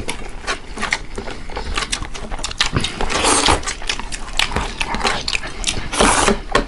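Eating by hand: rice squelching and smacking as fingers mix and squeeze it on steel plates, with chewing and lip smacks. A dense run of short wet clicks, thickest about three seconds in and again near the end.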